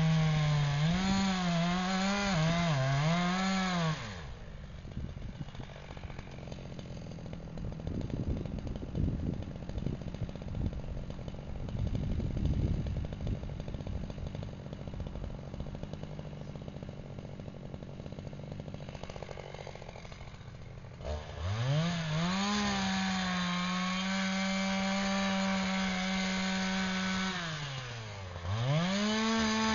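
Chainsaw cutting into a big beech at high revs, the pitch wavering as it works. The saw drops off about four seconds in and leaves a quieter stretch of irregular knocks and crackles. About two-thirds of the way through it revs up hard again and runs steadily at full throttle, dipping briefly near the end.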